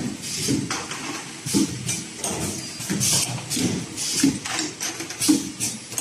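Automatic wire ring coiling and butt welding machine running: a string of short hisses and low clunks, roughly one every half second to second.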